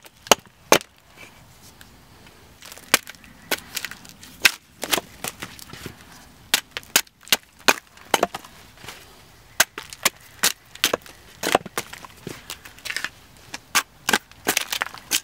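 Short-handled axe chopping into an upright green log on a chopping block: a long series of sharp chops at an irregular pace, sometimes two or three in quick succession, as slabs of wood are hewn off its side.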